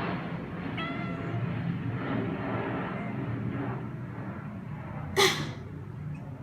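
A domestic cat meows once about a second in. About five seconds in, a person gives one short, loud cough, over a steady low background hum.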